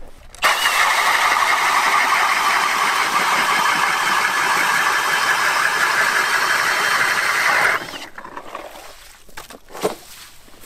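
Power ice auger boring a hole through lake ice, running steadily for about seven seconds and then stopping abruptly as it breaks through. A couple of light knocks follow near the end as the auger is lifted out.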